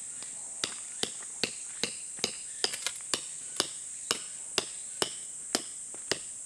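A hammer driving a tent peg into the ground with sharp, regular blows about twice a second, starting just under a second in. Behind it runs a steady, high insect buzz.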